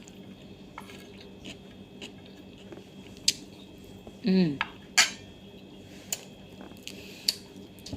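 Cutlery clinking against a plate now and then, a few sharp separate clicks while eating, with one short vocal sound about four seconds in.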